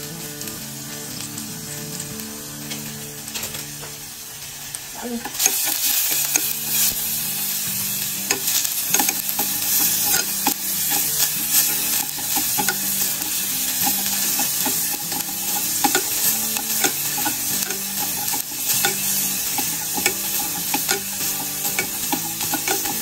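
Chopped shallots and garlic frying in hot oil in a pan while being stirred, with a spatula scraping and tapping the pan. The sizzle is faint at first and turns suddenly louder about five seconds in, then stays loud.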